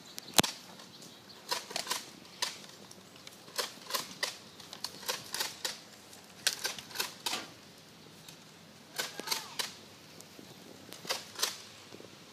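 A series of about twenty short, sharp clicks at irregular spacing, often in quick pairs or threes, with the sharpest one about half a second in.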